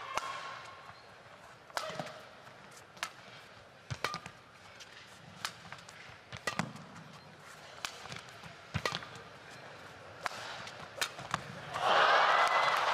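Badminton rally: a string of sharp racket strikes on the shuttlecock, roughly one every second, then the arena crowd breaks into loud cheering about twelve seconds in as the rally ends.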